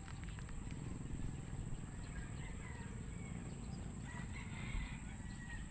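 A rooster crowing, faint over a steady low rumble.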